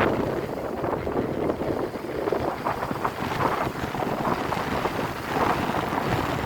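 Wind buffeting the microphone, with sea waves washing and splashing unevenly.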